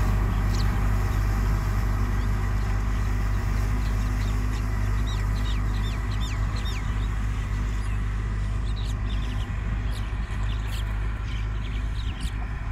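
Tractor engine running steadily while pulling a disc harrow, slowly fading as it moves away. Birds chirp repeatedly over it, mostly in the second half.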